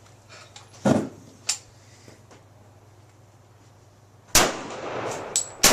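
Gunshots: a sharp shot about a second in and a smaller crack just after it, then a louder shot about four seconds in followed by a second of noise, and another shot near the end.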